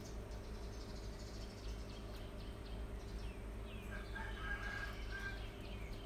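Rabbits chewing leafy greens with faint, scattered clicks over a steady low hum. A few short chirping bird calls come about four to five seconds in.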